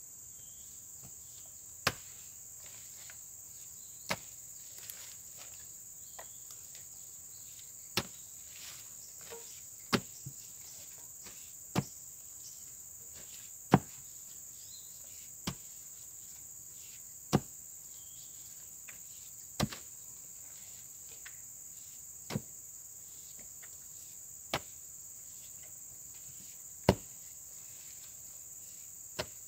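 A hoe striking into packed clay soil around buried ironwood timber: about a dozen sharp blows, roughly one every two seconds. A steady high-pitched chirring of insects runs underneath.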